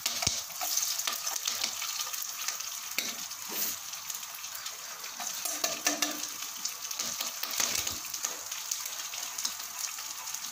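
Hot sesame oil sizzling and crackling in a pan, with dried red chillies, fennel seeds and freshly cut green chilli pieces frying in it.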